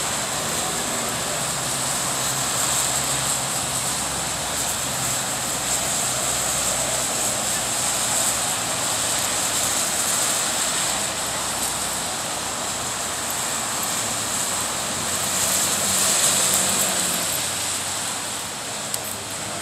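Steady street traffic noise at an intersection: cars running and passing under a constant, even hiss, with no distinct thunderclap.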